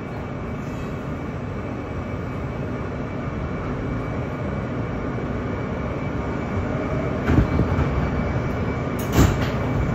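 Inside an R160B Alstom subway car: the steady rumble and hum of the train, slowly growing louder, with two sharp knocks near the end.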